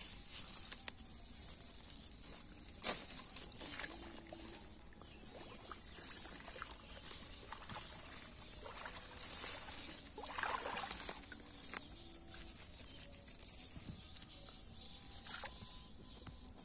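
Water hyacinth leaves rustling and crackling and water lightly sloshing and trickling as a bamboo fish trap is handled and set into shallow water among the plants. A sharp knock sounds about three seconds in and another near the end.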